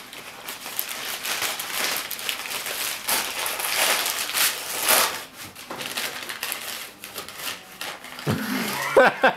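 Paper crinkling and rustling with scattered crackles, as a gift is unwrapped by hand. A voice rises near the end.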